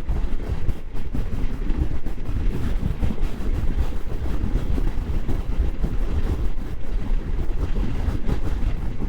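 Wind rushing over the microphone of a moving Moto Guzzi V85 motorcycle, a steady low rumble of wind, engine and road noise at cruising speed.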